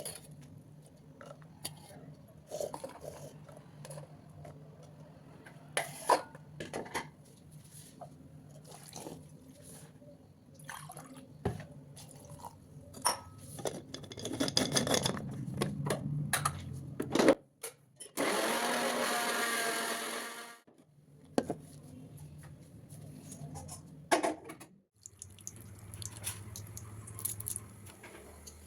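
Kitchen work sounds: scattered knocks and clatter of utensils and vessels, with one loud, steady rushing noise lasting about two and a half seconds, two thirds of the way in, that cuts off suddenly.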